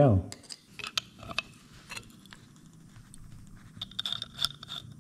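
Small metallic clicks and scrapes of hand tools on a pneumatic cut-off tool as a worn-down 3-inch cut-off wheel is being changed, with a hex key on the wheel's arbor bolt. A few sharp clicks come in the first two seconds and a quick cluster near the end.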